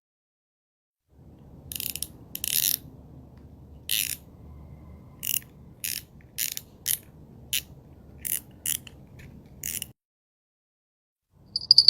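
A dozen or so sharp, irregularly spaced clicks over a faint low rumble, starting about a second in and stopping shortly before the end.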